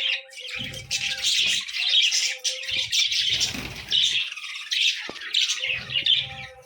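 A flock of small cage birds chirping and squawking continuously in a busy, overlapping chatter. Several stretches of low rumble run beneath it.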